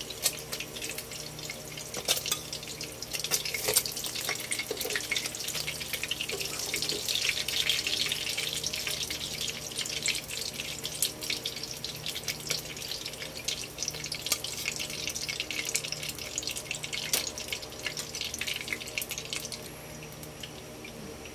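Hot oil sizzling and crackling in a nonstick frying pan as tuna-egg patties fry. The sizzle dies down near the end, once the patties have been lifted out and only oil is left in the pan.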